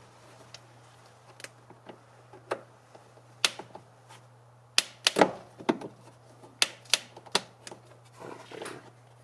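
Irregular sharp clicks and knocks of hard plastic: van rocker panel trim being handled and pried off its plastic clips with a trim removal tool. There are about a dozen clicks, spread unevenly, over a low steady hum.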